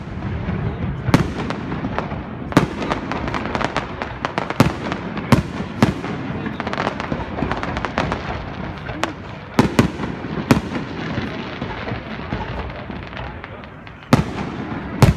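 Aerial fireworks shells bursting in a display: a sharp bang every second or two, with dense crackling between them. A short lull near the end is broken by two more bangs.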